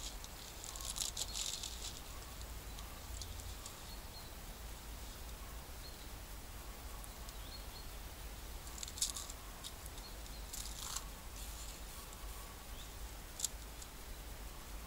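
Quiet outdoor background with a steady low hum, broken by a few short rustles of a plastic pasta packet being handled and a sharp click near the end.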